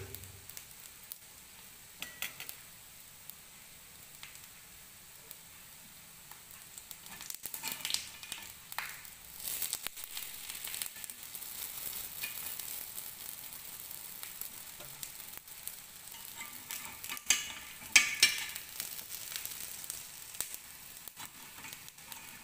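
Dahi vada batter balls sizzling in oil in an appe pan, getting louder about a third of the way in. A metal spoon clicks and scrapes against the pan now and then as the vadas are turned over.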